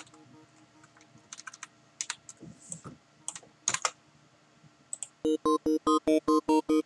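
Scattered computer keyboard and mouse clicks during note editing in a music program. About five seconds in, a Serum synth patch built on a sine wave starts playing back an arpeggio: rapid, evenly repeating notes.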